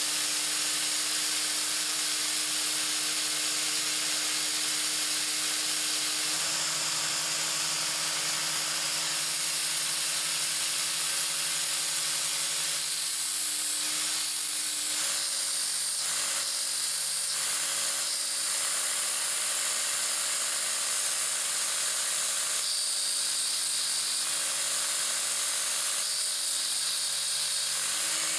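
Homemade belt grinder driven by an angle grinder's motor, running steadily with a whine and the hiss of the sanding belt. Twice in the second half, grinding rasps come in as a steel drill bit is pressed against the belt.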